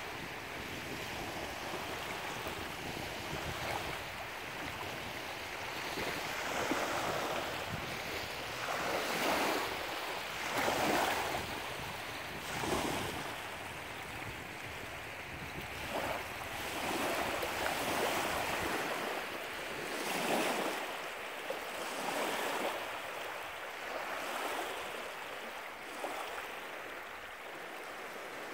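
Small lake waves lapping and washing onto the shore in repeated swells every couple of seconds, with wind buffeting the microphone that eases about two-thirds of the way through.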